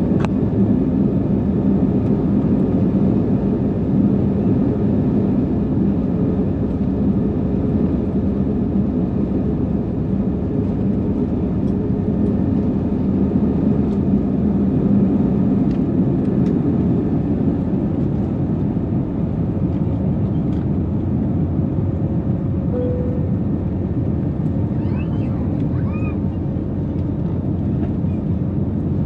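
Airbus A321neo engines at takeoff power heard from inside the cabin through the takeoff roll and liftoff: a steady, loud rush with a low hum, easing slightly in the second half.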